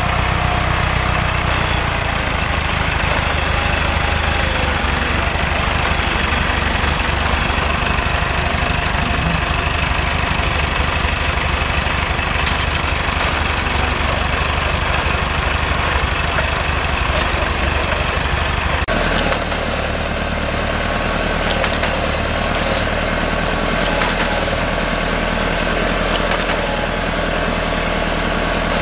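A Massey Ferguson vineyard tractor's diesel engine runs steadily while it drives along a vine row with a green-shoot tying machine mounted. The sound shifts in tone about two-thirds of the way through.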